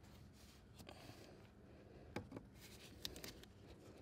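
Near silence with a few faint clicks and rubs of pliers working the pin out of the brake pedal linkage, about two to three seconds in.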